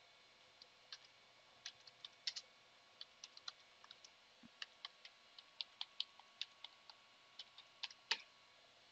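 Computer keyboard being typed on: faint, irregular key clicks, a few a second, with a slightly louder keystroke near the end.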